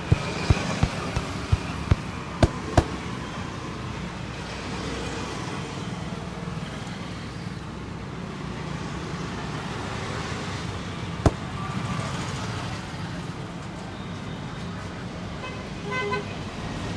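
Steady roadside traffic noise, with a short vehicle horn toot near the end. In the first three seconds, a quick run of sharp slaps, about three a second, from a barber's hands striking during a head massage, and one more sharp slap later on.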